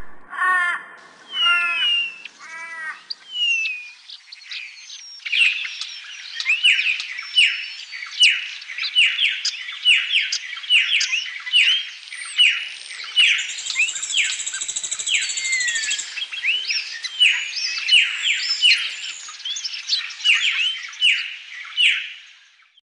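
A dawn chorus of many songbirds singing at once. A few repeated calls open it, and about five seconds in it thickens into dense overlapping chirps and whistles. A high buzzy trill rises above it for a couple of seconds midway, and the chorus stops abruptly just before the end.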